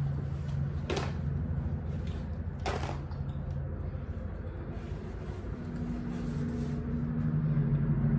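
A paper napkin handled, with two brief rustles about a second in and just under three seconds in, over a steady low hum.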